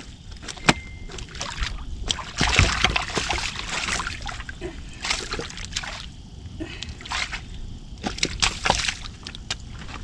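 Shallow river water splashing and sloshing as a catfish is released by hand at the bank, in several uneven bursts, the biggest about two and a half seconds in.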